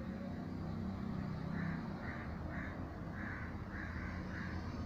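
A bird giving a run of short harsh calls, about two a second, starting about a second and a half in, over a low steady hum.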